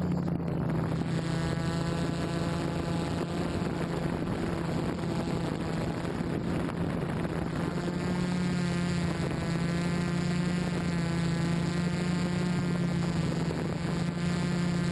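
OFM 650 quadcopter's electric motors and propellers humming steadily in flight, the pitch wavering slightly as the motors speed up and slow down.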